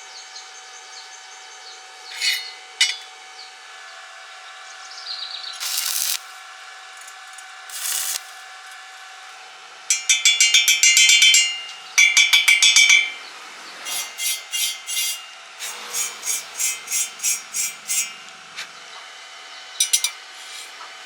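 Hand tool scraping and rubbing in repeated strokes: a few short scrapes, then a run of quick, rapid strokes, then slower strokes about two a second.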